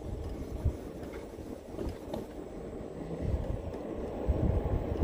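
Wind noise on the microphone and tyre rumble from a moving electric scooter on a paved path, getting louder about three seconds in.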